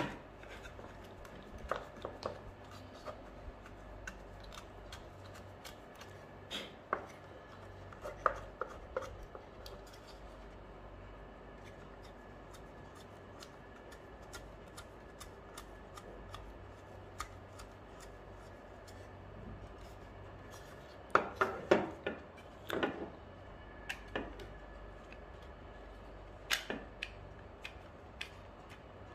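Scattered light clicks and knocks of a BV20 note acceptor's hard plastic housing being handled and wiped with a wet wipe, with a cluster of louder knocks about three quarters through, over a faint steady low hum.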